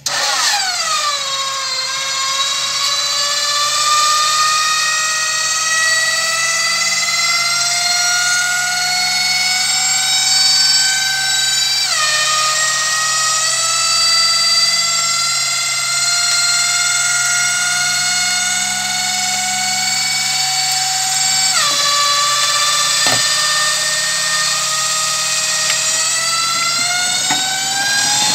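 Hydraulic lift of a homemade tipper body on a UAZ-3303 truck whining loudly under load as it raises a bed full of clay and stones. The pitch sags over the first couple of seconds, then creeps slowly upward, with sudden drops about 12 and 21 seconds in, over a faint low steady hum.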